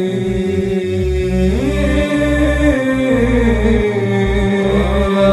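Arabic devotional chant (nasheed) sung in a slow, long melismatic line that glides between held notes, over a steady low drone.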